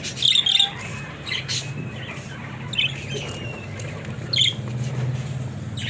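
Pet budgerigars giving short chirps and squawks, scattered calls every second or so, over a steady low hum.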